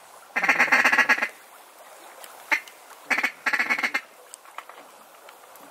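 Mallard-type duck call blown in two raspy quacking runs of about a second each, about three seconds apart, working a duck that is circling overhead.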